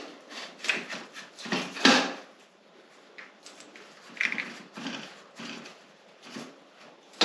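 Irregular short knocks, scrapes and clicks of hand tools and metal parts being handled while a motorcycle's front end is dismantled.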